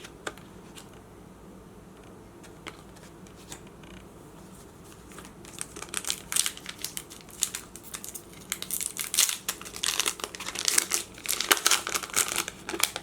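A few faint clicks, then about five seconds in, the foil wrapper of a Pokémon trading card booster pack crinkling and tearing as it is handled and ripped open, going on until just before the end.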